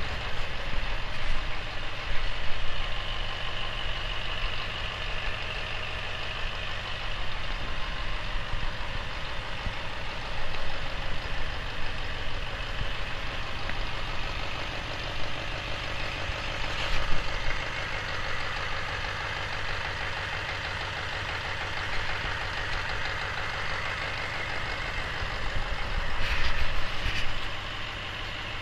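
Detroit Diesel 8.2N naturally aspirated V8 diesel engine running at a steady idle on a test stand, with a few brief rises in loudness.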